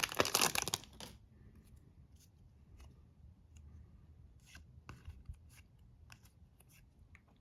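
Trading cards being handled, card stock sliding and rubbing against card stock: a brief loud scraping rustle at the start, then faint scattered ticks as the cards are shifted in the hand.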